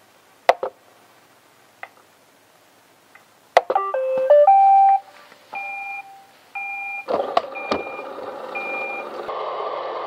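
iRobot Roomba 885 robot vacuum starting a cleaning run: a few sharp clicks, then its electronic start-up tune of beeps, and about seven seconds in its vacuum motor and brushes start and run steadily.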